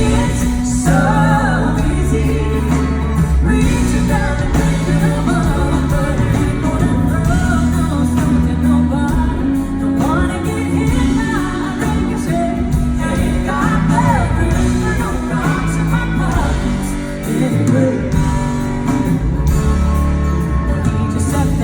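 A song with a singer's voice over a band, held bass notes underneath.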